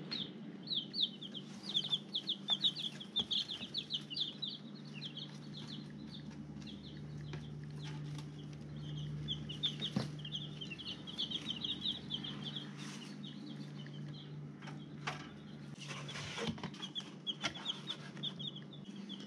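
Baby chicks peeping: a rapid, continuous stream of short high-pitched cheeps. A steady low hum runs underneath, with a few sharp knocks about ten seconds in and again near the end as the brooder bin and chicks are handled.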